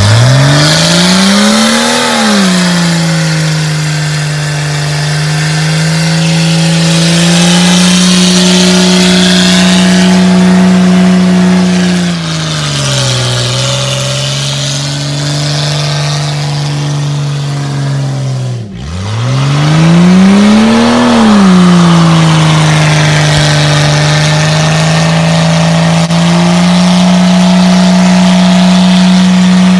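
1997 Jeep Cherokee's straight-piped 4.0-litre straight-six held at high revs in a one-wheel burnout, the spinning rear tyre squealing on the pavement. The revs climb hard at the start, sag briefly near the middle, drop away sharply about two-thirds of the way through and climb straight back up.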